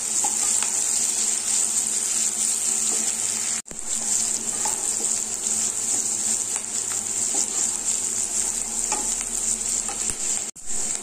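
Sliced onions sizzling as they fry in hot ghee in a kadhai, stirred with a wooden spatula that scrapes and knocks lightly against the pan. The sizzle is a steady high hiss, cut off very briefly twice.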